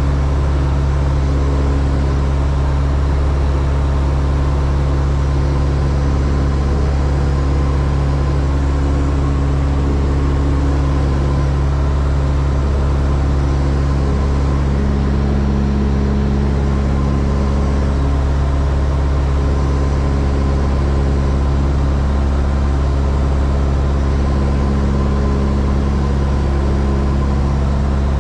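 Cessna 172's single piston engine and propeller droning at a steady, unchanging pitch and level in flight, heard from inside the cockpit cabin.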